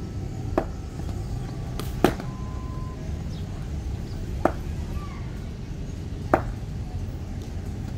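Cricket ball knocks in net practice, the leather ball hitting the bat and pitching on the concrete strip: four sharp knocks a second or two apart, the second the loudest, over a low steady rumble.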